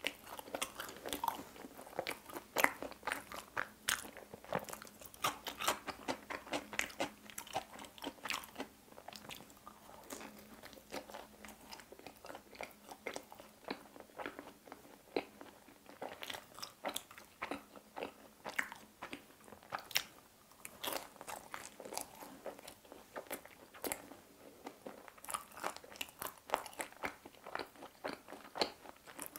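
Close-up eating sounds of a person biting and chewing pizza crust: irregular crisp crunches and clicks one after another.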